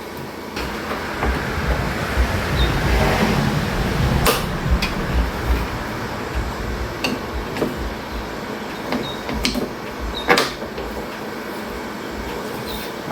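Hard plastic scraping, creaking and clicking as a tool pries a blank plug out of a lawn tractor's dash panel, with sharp snaps about four and ten seconds in.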